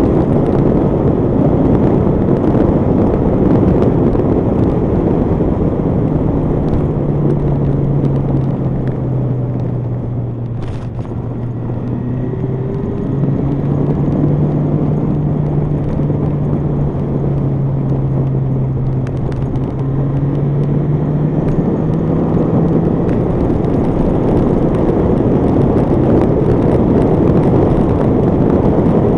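Honda CBR1100XX Blackbird motorcycle cruising at road speed: a steady rush of wind on the microphone of the bike-mounted camera, with the engine's steady hum showing through in the middle, where the wind eases briefly.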